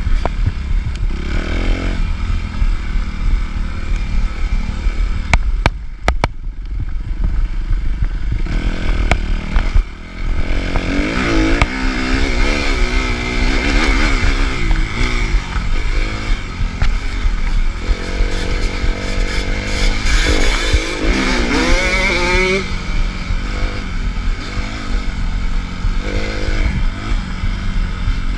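Suzuki RM-Z250 dirt bike's single-cylinder four-stroke engine under hard riding, its pitch rising and falling repeatedly as the throttle is opened and closed, with brief let-offs about six and ten seconds in. Rattling and scraping from the bike run underneath.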